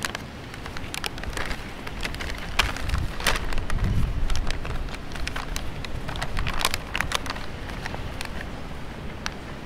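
Foil-lined plastic snack pouch crinkling and crackling as it is torn open by hand and pulled wide, a dense run of sharp crackles that is loudest about three to four seconds in.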